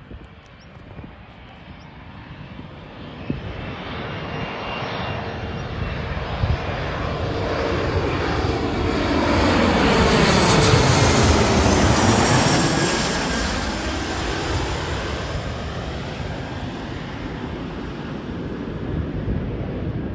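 Jet airliner's engines passing close by: the noise builds steadily, is loudest about eleven seconds in, then fades as the aircraft moves away.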